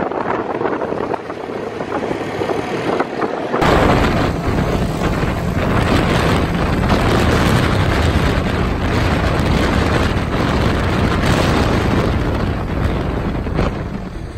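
Polaris RZR side-by-side buggy running at road speed. From about four seconds in, heavy wind buffeting on the microphone sets in and covers the engine.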